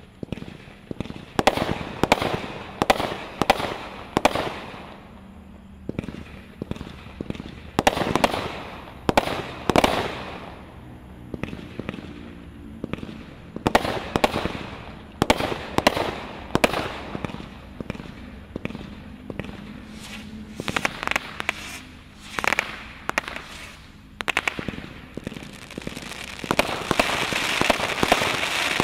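Brothers Pyrotechnics Wild West 25-shot fireworks cake firing shot after shot: sharp launch bangs and bursts about once or twice a second, the bursts crackling. Near the end the shots run together into a dense crackle.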